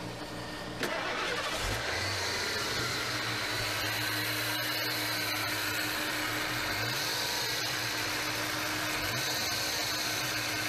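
A Ford car engine starts just under a second in and settles into a steady idle.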